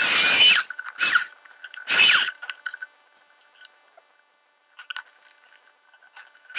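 Plunge saw running on a guide rail, cutting board in three short bursts about a second apart, each ending in a falling whine.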